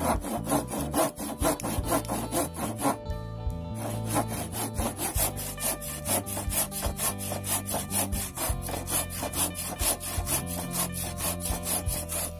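Hand sawing through a block of reclaimed door-frame timber with a bare saw blade: quick, even back-and-forth rasping strokes, with a short pause about three seconds in.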